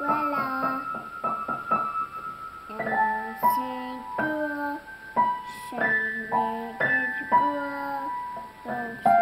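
Upright piano played by a small child, single notes and clusters of keys struck at an irregular pace and left to ring. A young girl's voice sings along without words in places.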